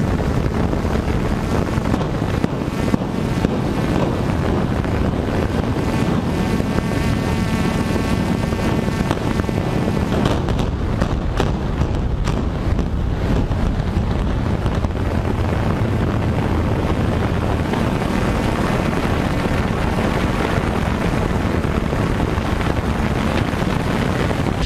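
Steady rushing wind noise on the microphone of an aerial camera, with a strong low rumble underneath and a faint whine in the middle stretch.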